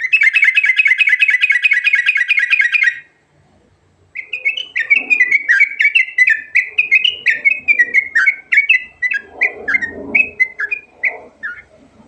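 Yellow-vented bulbul (trucukan) singing. A fast trill runs for about three seconds, then after a short pause comes a long run of quick separate notes, many sliding down in pitch.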